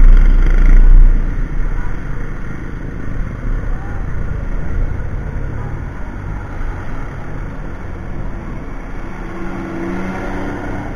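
Honda Click 150 scooter slowing to a stop. Wind rushes over the helmet-camera microphone for the first second or so, then a quieter, steady rumble of the stopped scooter and street traffic.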